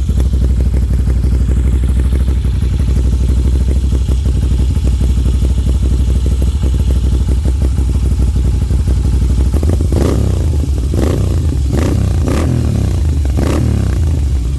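Moto Guzzi V7's transverse V-twin idling through an aftermarket Agostini exhaust, then blipped about five times in quick succession near the end, each rev rising and falling back to idle.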